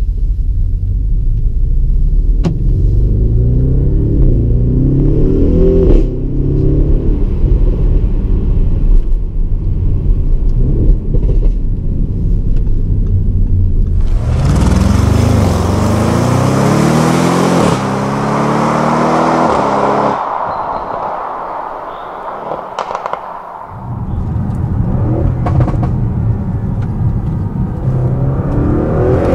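Audi RS6's twin-turbo V8 heard from inside the cabin, accelerating hard through the gears, its pitch climbing and dropping back at each shift. In the middle a loud rush of wind noise rises over it for several seconds, then the engine goes quieter for a few seconds before pulling hard again near the end.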